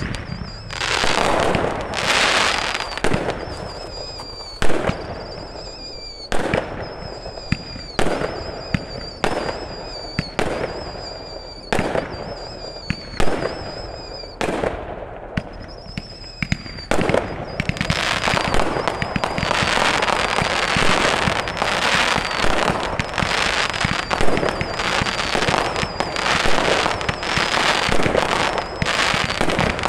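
Fireworks display: aerial shells bursting with sharp bangs about once a second, many paired with a short high whistling tone. From about 17 seconds in, the bursts run together into dense, continuous crackling.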